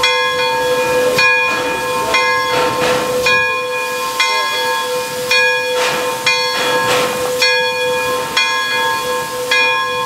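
Pere Marquette 1225, a 2-8-4 Berkshire steam locomotive, hissing as steam escapes around its front end. The hiss comes in repeated surges over a steady whistling tone, and a set of higher tones cuts in and out every second or so.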